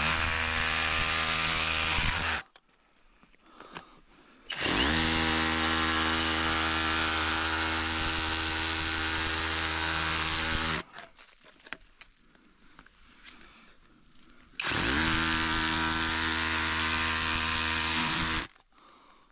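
A handheld electric power tool run in three bursts. Each run spins up quickly to a steady pitch, holds it, and cuts off. Faint scrapes and knocks fill the pauses between runs.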